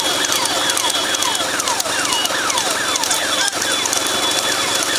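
Vehicle engines running steadily, overlaid by a dense run of high whistle-like tones that each fall in pitch, about two a second.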